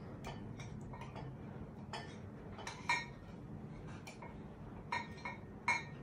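A metal spoon knocking and scraping against a bowl as gram flour is spooned out: a string of irregular clinks, each with a short ring, the loudest about three seconds in and again near the end.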